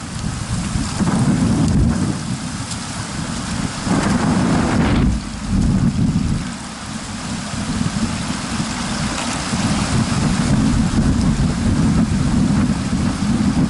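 Wind buffeting the camera microphone: a loud, low rumble that rises and falls in gusts.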